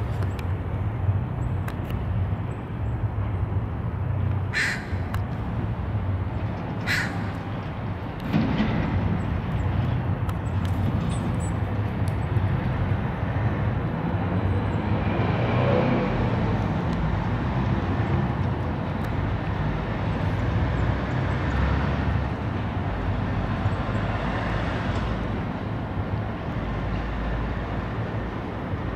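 Crow cawing a few times over a steady low rumble of traffic.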